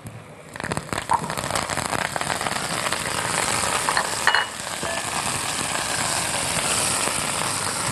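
Garlic and fresh green coriander sizzling in hot oil in a pan as a taqliya fries. The sizzle starts about half a second in and then keeps up steadily.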